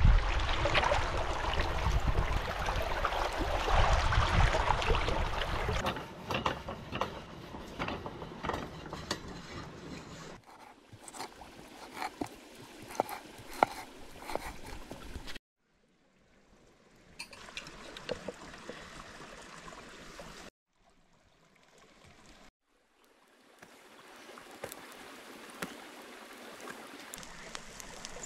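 Shallow stream water splashing and running around a hand rinsing green peppers. After a cut, a knife cuts raw chicken on a wooden board with scattered sharp taps.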